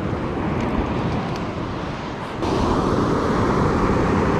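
Surf washing on the beach mixed with wind on the microphone, a steady rushing noise that jumps louder about two and a half seconds in.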